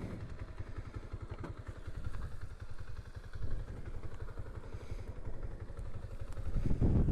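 Kansas 150 motorcycle's single-cylinder engine idling with an even, fast beat, with wind rumbling on the microphone.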